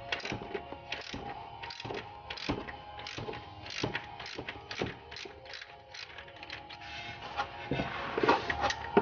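Socket ratchet with a shallow 13 mm socket clicking in short irregular runs as it is swung back and forth to undo the clutch slave cylinder's nuts, louder near the end.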